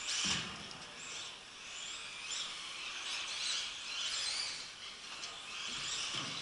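Brushless electric motor of a Yokomo SO 1.0 modified-class RC buggy whining as it drives the track, rising and falling in pitch about once a second as the car accelerates and brakes, over a steady hiss of drivetrain and tyres. Low thuds come just after the start and again near the end.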